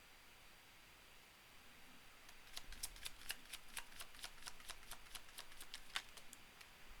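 Tarot cards being shuffled: a quick, faint run of crisp card clicks, about five a second, starting a couple of seconds in and stopping about a second before the end.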